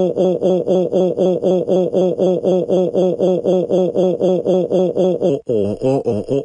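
Brian text-to-speech voice doing a cartoon cry: one short syllable repeated mechanically at about five a second, with a brief break about five and a half seconds in before it resumes.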